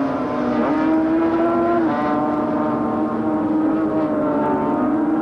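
Racing motorcycle engines running hard at high revs, with several engine notes overlapping. The pitch shifts up and down a few times as the bikes work through the corner.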